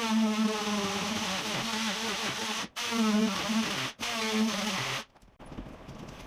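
Electric power tool buzzing at a high speed, its pitch wavering as it works. It cuts off abruptly several times.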